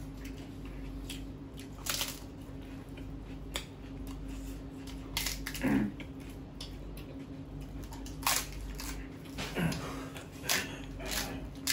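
Close-miked eating by hand: mouth sounds of chewing and biting into fried fritters and rice, heard as a series of short, sharp smacking bursts about a second or two apart. A steady low hum runs underneath.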